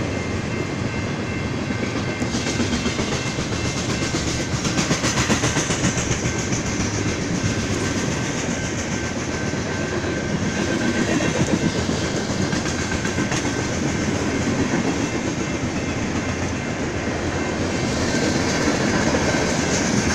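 BNSF coal train's hopper cars rolling past at steady speed: a continuous rumble of steel wheels on rail with rhythmic clickety-clack over the rail joints. Thin, steady high-pitched tones run over it.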